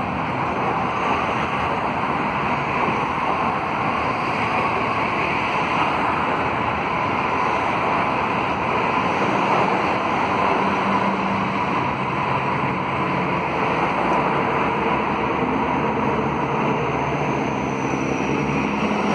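Steady jet aircraft engine noise: an even rushing hiss with a faint steady whine, joined by a low hum about halfway through.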